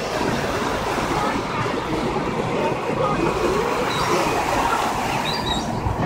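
Steady rumble of a boat's engine and its churning wake. A few short, high gull calls come through faintly about four and five and a half seconds in.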